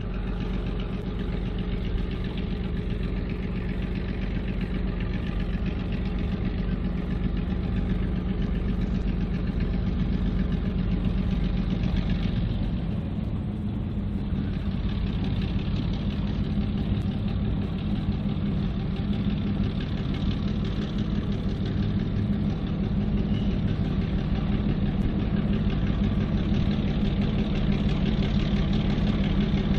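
Diesel locomotive engine running steadily, growing a little louder toward the end.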